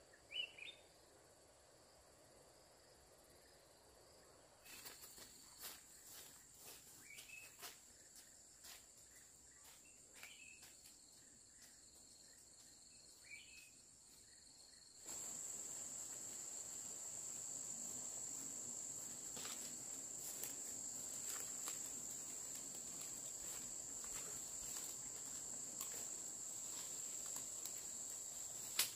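Insects droning in a steady, high, thin whine, with scattered light clicks and knocks and a few short high chirps. About halfway through the insect whine suddenly becomes much louder.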